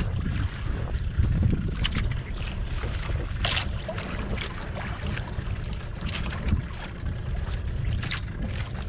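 Wind rumbling on the microphone aboard a small outrigger fishing boat at sea, with water slapping against the hull now and then in short sharp splashes.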